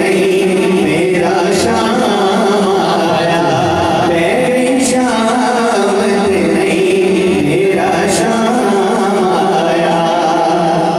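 Naat sung unaccompanied by men: a lead male voice over other men's voices holding long sustained notes.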